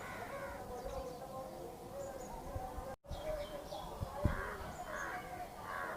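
Crows cawing, with small birds chirping higher up and a steady wavering drone underneath. The sound cuts out for an instant about halfway, and a couple of low thuds come soon after.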